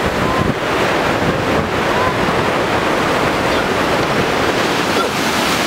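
Steady, loud rush of river rapids, white water pouring over rocks in a gorge.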